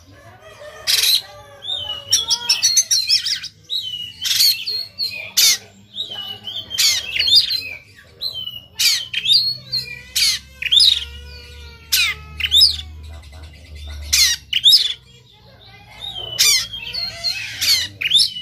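Oriental magpie-robin singing loudly: harsh, rasping 'shot' notes about every second, mixed with short whistled phrases. It is the aggressive song of a male worked up to fight, singing with its tail spread.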